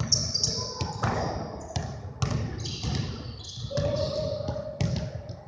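Basketballs bouncing on a hardwood gym floor, a string of thuds at irregular intervals, with short high squeaks of sneakers on the floor.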